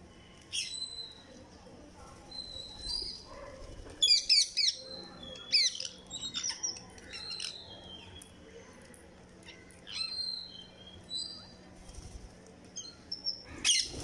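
A flock of rose-ringed parakeets giving short, shrill calls on and off, loudest in a burst of rapid screeches about four to six seconds in.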